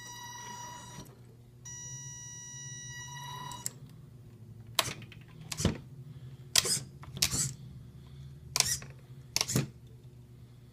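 Electric drive motor of an RC lowrider car whining at a steady high pitch in two stretches, the first about a second long and the second about two seconds. After that come six sharp clicks at irregular intervals of about a second.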